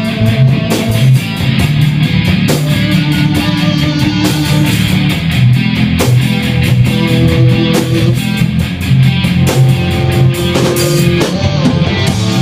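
Live rock band playing an instrumental passage of a song, with no singing: electric guitar over a drum kit, in a steady beat.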